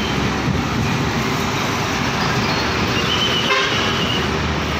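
Street traffic: a heavy box truck and motorcycles passing on a road, a steady traffic noise, with a brief thin high tone about three seconds in.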